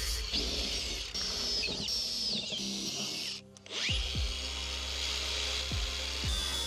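A small electric motor whining and changing pitch, in the manner of a handheld power tool, over background music with a low, thumping beat. The sound breaks off briefly about halfway through.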